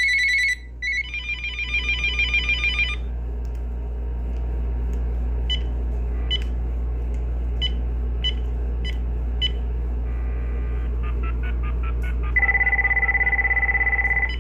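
Uniden EXAI7980 cordless phone handset playing its electronic ringtones one after another, each a short trilling ring pattern, with a few short beeps between them as the tones are stepped through. A steady low hum runs underneath.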